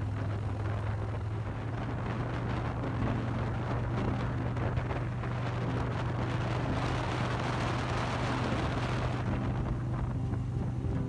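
Motorcycle engine running at a steady highway cruise, a constant low hum, with wind rushing over the microphone that grows louder a few seconds in and eases near the end.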